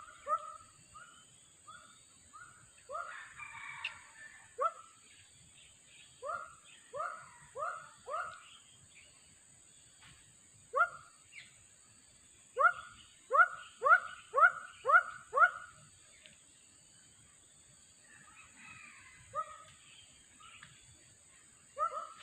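An animal calling in short, clear notes, repeated in runs of several at about two a second, over a steady high-pitched insect drone.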